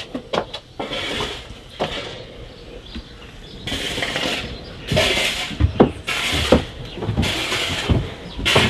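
Rustling and footsteps as someone walks along carrying the camera, with a few light clicks in the first second.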